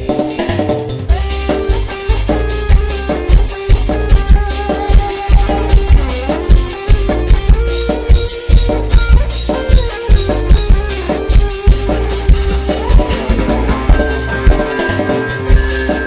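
Loud amplified dangdut band playing an instrumental passage: drums and shaken percussion keep a steady beat under electric guitar, keyboard and a bamboo flute (suling) melody.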